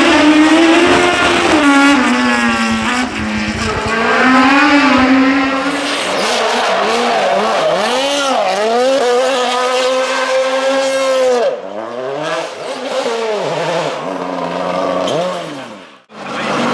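Performance car engine running hard, its pitch rising and falling again and again as the revs go up and down between gear changes and throttle lifts. It holds a steadier note for the first few seconds, and the sound drops away briefly near the end.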